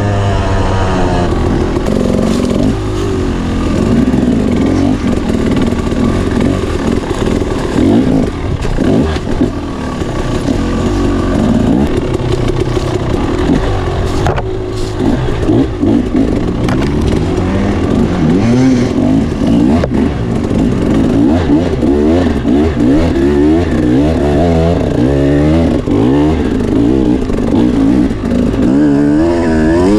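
Dirt bike engine ridden hard along a trail, its pitch rising and falling again and again as the rider works the throttle and gears.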